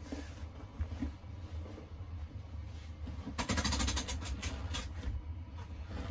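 Blankets and vinyl-covered seat cushions rustling and rubbing as they are handled and moved, with a burst of rustling about three and a half seconds in, over a steady low hum.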